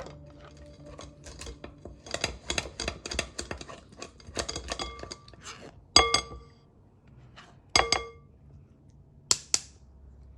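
Metal kitchen utensils and cookware clinking and scraping: a quick run of light taps and scrapes, then three louder ringing clinks a little over a second apart near the end.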